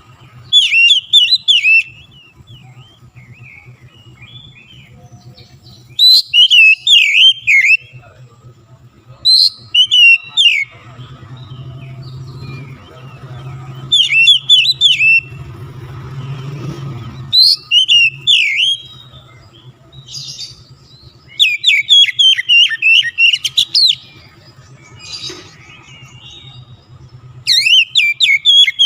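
Oriental magpie-robin singing loud, fast bursts of varied whistled and chattering phrases, about seven separate bursts with short pauses between them, over a low steady hum.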